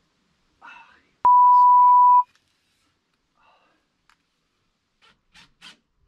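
A censor bleep: one loud, steady, high beep lasting about a second, cut in over a spoken word just after a brief exclamation. A few short scrapes follow near the end.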